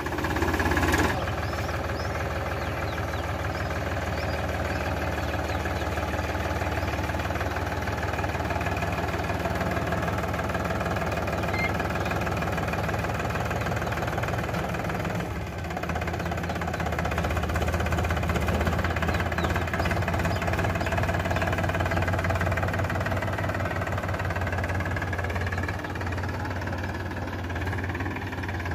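Powertrac Euro 50 tractor's three-cylinder diesel engine running steadily under load as it tows a wheat thresher, easing off briefly about halfway through.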